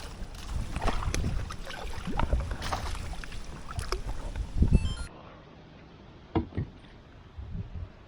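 Irregular water splashing and handling noise while a hooked creek fish is fought and brought in. About five seconds in the sound cuts abruptly to a quieter stretch with a few soft knocks.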